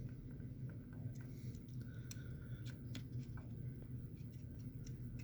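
Scattered light clicks and taps of small parts and tools being handled on a workbench, over a steady low hum.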